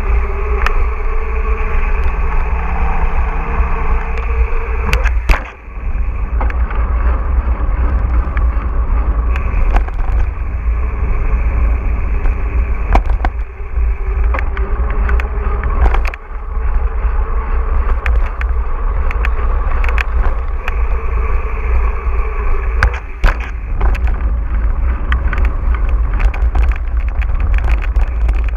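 Mountain bike riding heard through an action camera: heavy wind rumble on the microphone and rolling tyre noise, with frequent sharp rattles and knocks from the bike over rough ground. The noise drops away briefly a few times.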